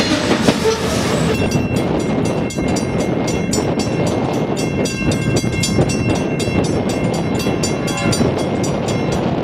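Union Pacific freight train of covered hopper cars rolling past at close range, a steady rumble of wheels on rail. From about a second in, a rapid regular clicking, about three a second, with faint ringing tones runs over the rumble.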